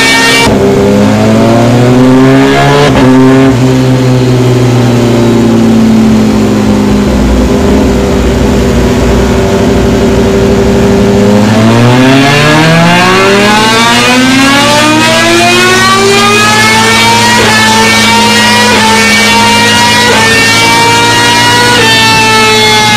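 Rusi Gamma R200 motorcycle engine under way. It revs up early on, eases off slowly for several seconds, then climbs again in a long rise about halfway through and holds, with a short dip near the end.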